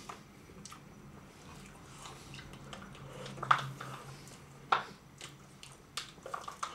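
Plastic spoons scraping and clicking against plastic sundae cups as two people eat soft-serve toffee sundaes fast, with a few sharper clicks, the loudest about three and a half and nearly five seconds in.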